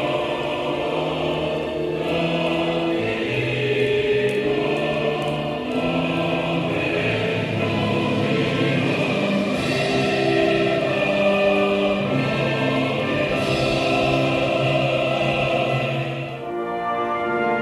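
A choir singing long, held notes in several parts, with accompaniment. About sixteen seconds in the singing stops and instrumental music takes over.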